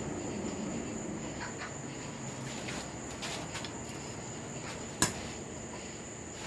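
A single sharp metallic clank about five seconds in, amid blacksmithing work on a nail, over a steady low background noise and a continuous thin high-pitched tone.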